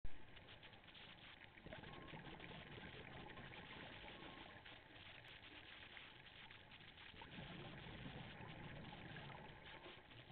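Faint underwater ambience picked up by a camera in its housing: a steady, muffled hiss. There is a brief knock at the very start and a slightly louder low swell about seven seconds in.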